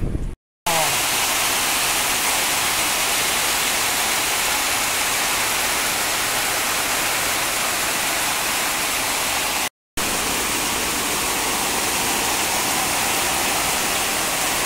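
Heavy rain pouring down in a steady hiss, with two brief silent breaks: one near the start and one about ten seconds in.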